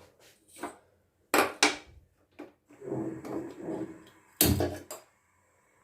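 Gas stove being lit: two sharp clicks about a second and a half in, then a heavier knock near the end, with softer handling noise between them.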